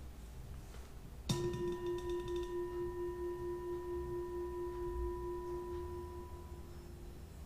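Brass singing bowl struck once with a wooden mallet about a second in. It then rings with a steady, pulsing tone and a couple of higher overtones, sustained by the mallet worked around the rim, and fades near the end.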